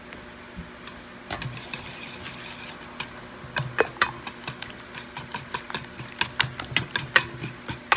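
Wire balloon whisk beating eggs and cinnamon in a stainless steel bowl, its wires clicking and scraping against the metal in quick, uneven strokes, starting about a second in.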